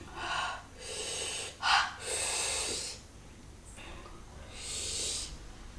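A woman huffing hard breaths out through her mouth, about five in all. The shortest and sharpest puff comes about two seconds in, and the longest, hissiest blow follows it straight away.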